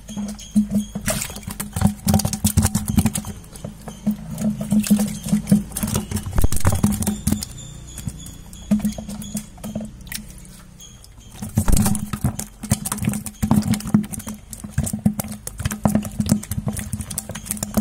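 Live fish, grass carp among them, flapping in a plastic bucket: rapid, irregular knocks and slaps of tails and bodies against the plastic, easing off for a few seconds in the middle before starting up again.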